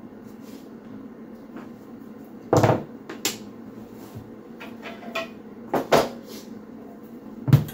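About half a dozen sharp knocks and clatters of tools being handled and set down on a hard floor, ending with a low thump as a mitre block is put down.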